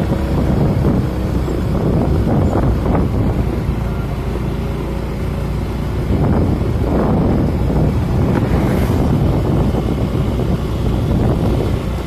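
Wind buffeting the microphone: a loud, steady rumble that swells and eases in gusts.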